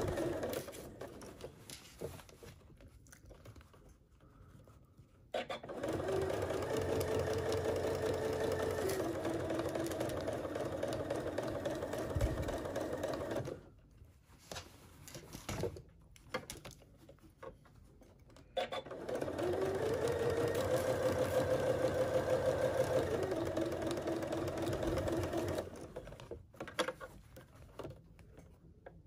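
Domestic sewing machine stitching in short runs: it stops just after the start, then runs twice for several seconds each. Each time the motor whirs up to speed, holds steady and slows before stopping. Faint clicks of handling are heard in the pauses while the fabric is repositioned along the seam.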